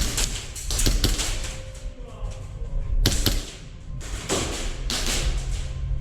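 Airsoft guns firing: sharp shots, single and in quick clusters, at irregular intervals.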